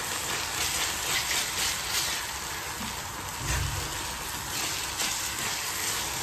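Thick onion-tomato masala sizzling steadily in oil in a stainless steel pan while a silicone spatula stirs and scrapes it. The masala is well fried, its oil separating out.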